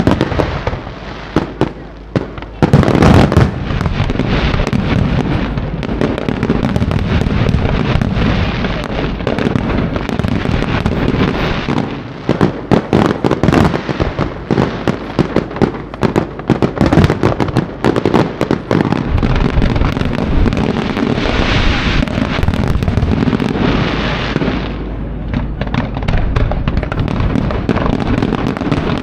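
A fireworks display firing continuously: a dense run of bangs and crackle, with a heavy burst about three seconds in. About three-quarters of the way through comes a few seconds of hissing crackle that stops suddenly.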